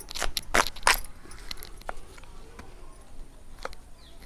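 A raw, peeled banda tuber being cut against a fixed upright blade on a wooden block. There is a quick run of sharp, crisp cuts in the first second, then a few lighter ticks, and another loud cut at the very end.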